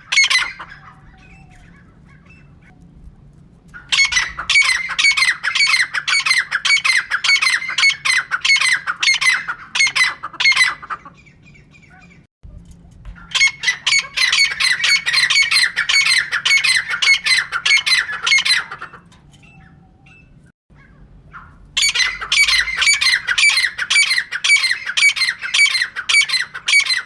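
Female francolin (teetar) calling: long bouts of rapid, harsh repeated notes, three bouts separated by short pauses.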